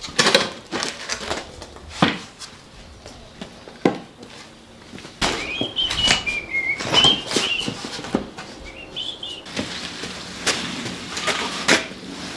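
Bird chirping in short notes that bend up and down, mostly in the middle of the stretch, over scattered knocks and scrapes.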